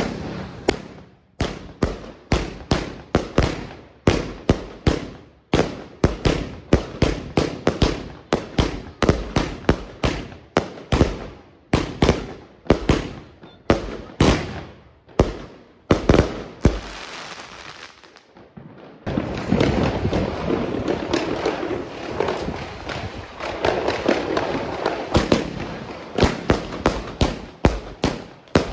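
Consumer firework cakes firing: a Riakeo Vortex 4 cake launching shot after shot, several sharp bangs a second. After a short break about two-thirds through, a Redwire Redhead Willow cake starts, a dense continuous noise with bangs over it.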